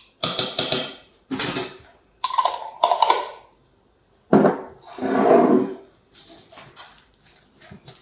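Metal spoon scraping around the inside of a glass jar and clinking against a bowl as thick paste is scooped out, then stirring a thick, wet mince mixture. It comes in several separate scraping bursts, the longest and loudest about halfway through.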